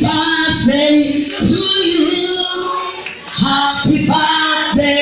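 A woman singing a church praise song into a microphone, in phrases of held notes with short breaks between them.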